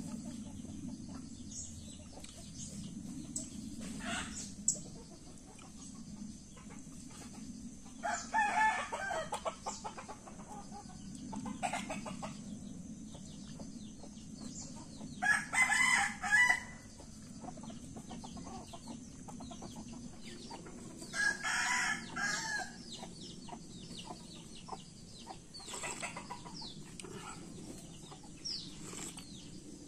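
A rooster crowing three times, each crow lasting a second or two, with a few fainter calls between.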